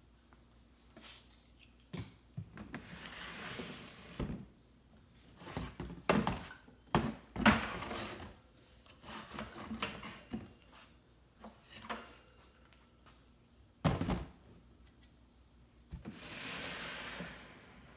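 Irregular knocks, thunks and scraping of objects being moved and handled, with a few sharp louder knocks in the middle and a longer scrape near the end.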